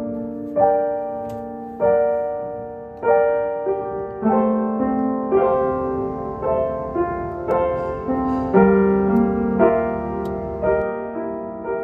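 Slow background piano music: chords and single notes struck about once a second, each ringing on and fading.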